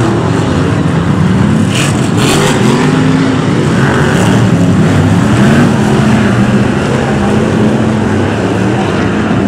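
Several BriSCA F1 stock car V8 engines running loud together, their pitch rising and falling as the cars rev through the bends.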